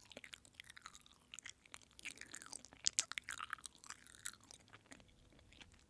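A person chewing food close to the microphone, with scattered small crunches and wet mouth clicks, one sharper crunch about halfway through.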